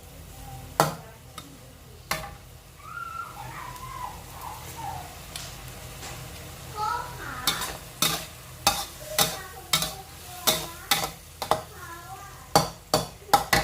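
Seafood and holy basil stir-fry sizzling in a pan, with a metal spatula scraping and striking the pan. The strikes come a couple of times early on, then settle into a regular run of about two a second over the second half.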